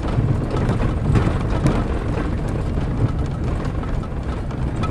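Minivan driving, heard from inside the cabin: a steady engine and road rumble with frequent small rattles and knocks.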